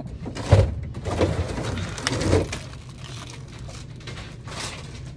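Several knocks and bumps of goods being grabbed and shifted on a metal store shelf, the loudest about half a second in and again around two seconds, over a steady low store hum.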